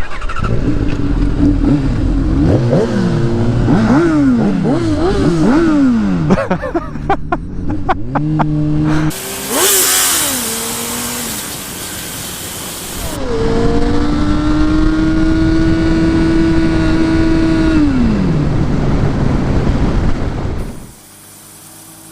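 Inline-four sportbike engine accelerating hard and shifting through the gears, its pitch climbing and dropping again and again. About ten seconds in, a rush of wind noise covers the microphone. Then there is a long steady pull that winds down, and the sound drops away sharply near the end.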